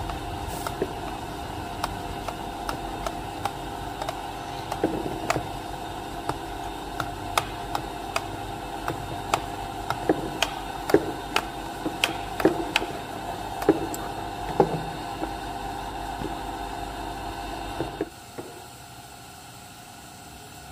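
Panasonic electric dry iron being worked over cloth on a wooden table: irregular sharp clicks and taps as it is set down, shifted and knocked. Under this runs a steady mechanical hum that stops about 18 seconds in.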